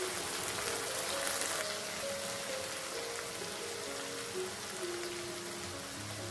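Fish curry gravy sizzling in a frying pan, a steady hiss that is strongest in the first second and a half. Background music with a slow melody plays over it.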